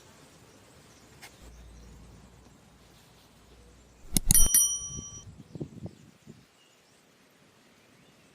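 A small metallic bell-like ring: a few quick strikes about halfway through, whose clear tones die away within a second. A few soft knocks follow, over a faint background hiss.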